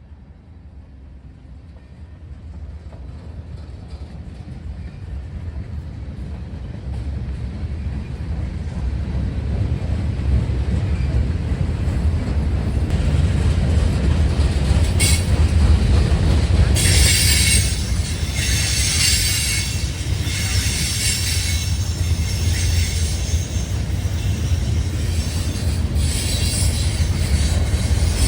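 A train approaching and getting steadily louder, then rolling past with a heavy low rumble. From about halfway, high-pitched wheel squeal comes and goes in patches.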